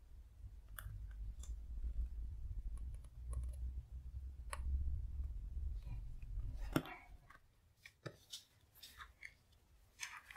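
A paper traveler's notebook being handled: a low rumble of handling with scattered soft paper clicks and rustles, then a sharp knock about two-thirds of the way through as it comes down on a wooden table, followed by light taps and rustles.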